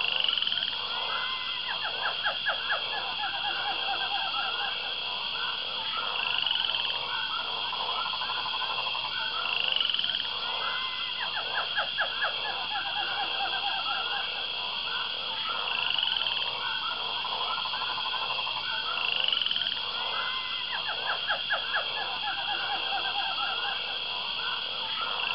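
A chorus of frogs croaking and trilling over a steady high-pitched drone, the calls coming in rapid pulsed runs. The same pattern of calls comes round again about every nine to ten seconds, as in a looped recording.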